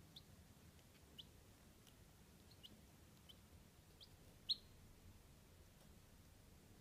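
Chabo bantam chicks peeping softly: a handful of short, high, falling peeps about a second apart, the loudest about four and a half seconds in.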